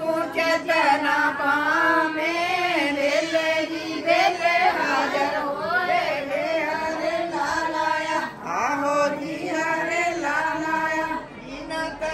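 A group of women singing a Punjabi song together, several voices in unison.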